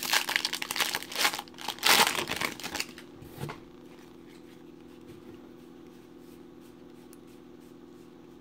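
Foil wrapper of a baseball card pack crinkling and tearing as it is ripped open, loudest about two seconds in. After about three seconds it goes quiet apart from a low steady hum.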